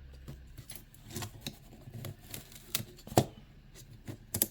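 Scattered small clicks and rustles of hands working on a graphics card's fan assembly, peeling up the tape that holds the fan wires down, with a sharper click about three seconds in and a couple more near the end.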